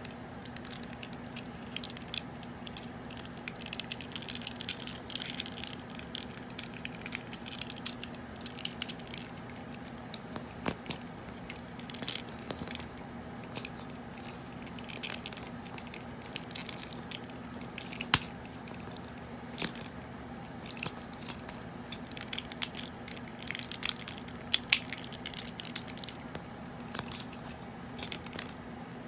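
Parts of a Transformers G1 Hot Rod toy clicking, snapping and rubbing as it is handled and transformed: irregular sharp clicks with a few louder snaps, over a faint steady low hum.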